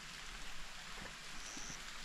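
Steady rush of a waterfall heard from a distance down the canyon, with a short high whistle about a second and a half in.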